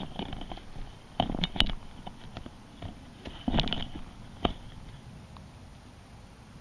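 Golf club swings on a tee: a few sharp clicks and knocks, the loudest about a second and a half in and another group about three and a half seconds in.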